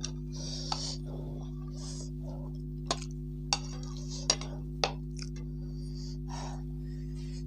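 Metal spoon clinking and scraping on a plate during eating, with a handful of sharp clinks, most of them between about three and five seconds in. A steady low electrical hum lies underneath.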